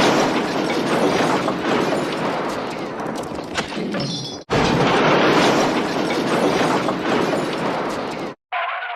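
A long crash-and-smash sound effect: a loud rush of noise that slowly fades, breaks off about four and a half seconds in, then starts again at full loudness and fades once more. A short pitched sound comes in at the very end.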